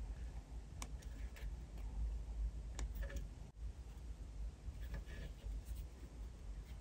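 Small scissors snipping the end of a soft twisted marshmallow: a few light, sharp clicks in the first three seconds, then faint soft sounds of fingers handling the marshmallow. A steady low rumble lies underneath.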